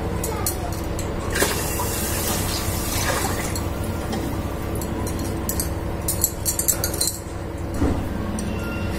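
Water poured from a steel bowl into an electric rice cooker's pot, then a few clinks of steel bowl and lid near the end, over a steady hum.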